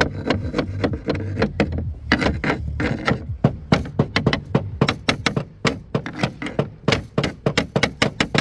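Rapid, irregular sharp taps and knocks on roofing slate, several a second, as a replacement slate is worked up into place in the slate roof.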